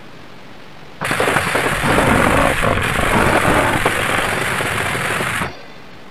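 Harsh, distorted gorenoise music: a dense wall of noise that starts abruptly about a second in and cuts off suddenly near the end, leaving a faint hiss in the short gaps between tracks.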